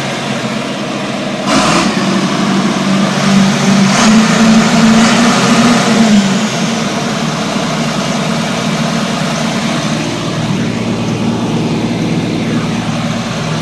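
Tractor diesel engine idling, heard from inside the cab. There is a sharp click about a second and a half in, then the engine speeds up for a few seconds and drops back to idle around six seconds in.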